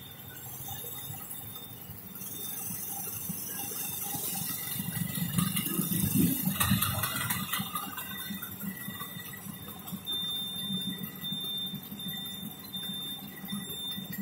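Road traffic heard from inside an auto-rickshaw in a jam: a steady mix of idling engines around it, swelling to louder engine noise for a couple of seconds about six seconds in.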